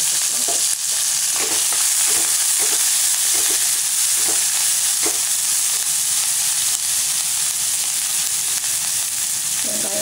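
Chopped onion, green chilli, curry leaves and ginger sizzling in hot oil with peanuts and cashews, the tempering for upma frying steadily. A wooden spatula stirs and scrapes the pan in short strokes through the first half.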